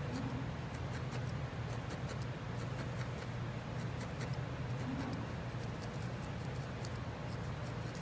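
Barbed felting needle stabbing repeatedly into wool roving on a felting mat, compacting the pig's legs. It makes a quick, irregular run of faint clicks over a steady low hum.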